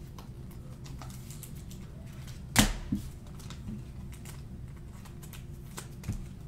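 Cards and hard plastic card cases being handled on a tabletop: scattered light clicks and taps, with a sharper knock about two and a half seconds in and a smaller one half a second later.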